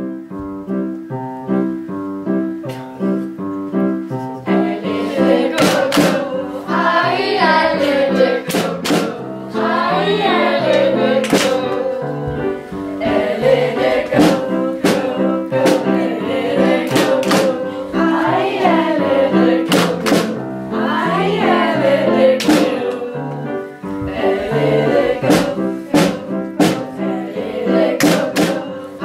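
A song with instrumental accompaniment: about four seconds of instrumental intro, then a group of voices singing over it. Sharp hand claps come in at irregular intervals during the singing.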